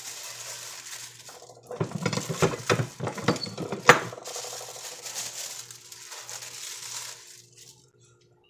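Metal tortilla press being handled: a cluster of knocks and clanks of the plate and handle about two seconds in and a sharp click near four seconds. Then plastic bag lining crinkles as the pressed masa disc is peeled off, fading out near the end.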